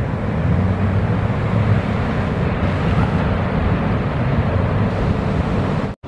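Steady low rumble of breaking surf and wind on the microphone, dropping out for an instant near the end.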